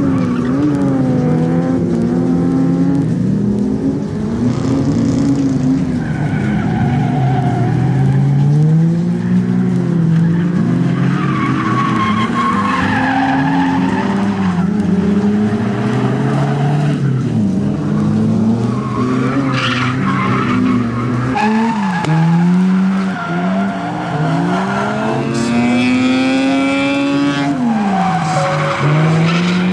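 Drift cars sliding: engines revving hard, their pitch rising and falling again and again with throttle and clutch, over the squeal of tyres breaking traction.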